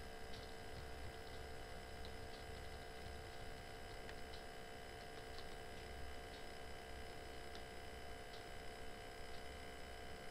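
Quiet room tone with a steady electrical hum, and faint, irregular clicks about once a second from the computer's mouse or keys as fonts are stepped through.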